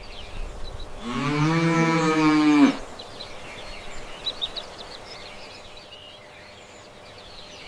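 A cow mooing once, a single long low call of about a second and a half that falls in pitch as it ends, followed by faint bird chirps.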